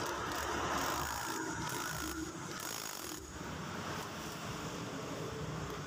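Cordless impact wrench hammering as it runs the nut onto a scooter's CVT clutch housing.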